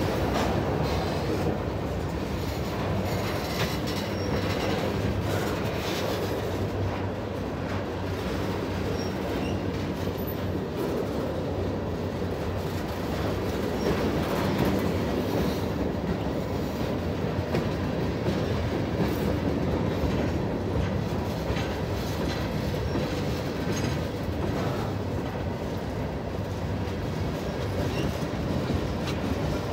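Freight train cars (covered hoppers, then gondolas) rolling steadily past at close range: a continuous rumble of steel wheels on rail with faint clicks.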